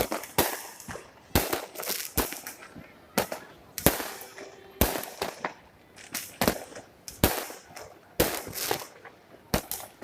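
Fireworks going off in a steady series of sharp bangs, one or two a second, each trailing off in a short crackle.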